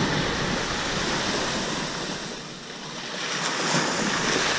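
Small waves breaking and washing up onto a sandy beach. The surf eases a little past the middle and swells again near the end.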